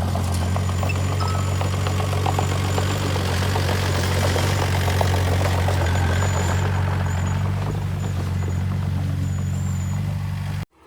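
Heavy construction-machine diesel engine running steadily at a low, even pitch, with dense rattling and clatter over it. The sound cuts off abruptly near the end.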